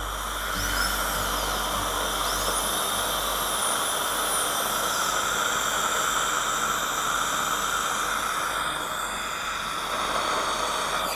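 Water-cooled dental handpiece running on a tooth's biting surface with a finishing stone, a steady spray-and-air hiss under a thin high whine that rises and falls in the first few seconds as the speed changes. This is typical of finishing and adjusting the occlusion of a freshly placed filling.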